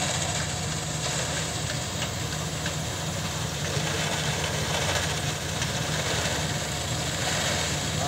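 Combine harvester's diesel engine and threshing machinery running steadily under load as it cuts a rice crop, a constant low drone with a hiss of working machinery over it.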